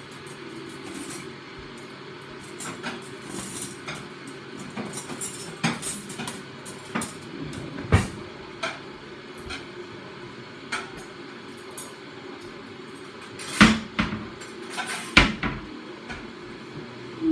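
Kitchen things being handled: scattered light knocks and clicks, a sharp knock about eight seconds in, and two louder knocks near the end, over a low steady hum.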